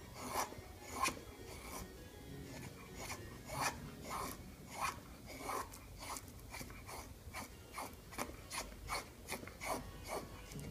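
Knife blade shaving curls off a wooden stick for a feather stick: a long run of short dry scraping strokes, coming faster toward the end. The knife is a thick Japanese-made blade with a steep convex bevel that still cuts.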